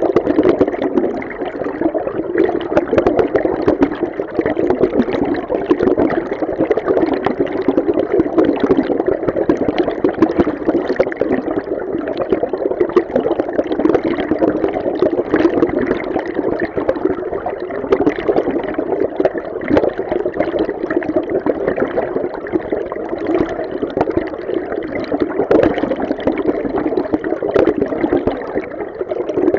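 River stream water heard underwater: a steady, muffled rush, strongest in the low-middle range and dull in the highs, constantly flickering with fine turbulence.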